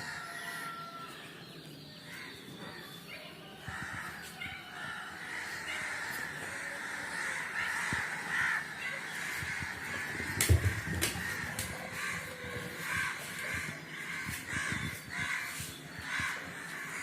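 Crows cawing over and over, the calls coming about twice a second in the second half, with two sharp knocks about ten seconds in.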